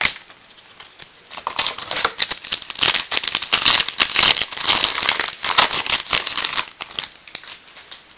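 A 2005 Donruss Champions foil card pack being torn open by hand, its wrapper crinkling and crackling for about five seconds, loudest in the middle.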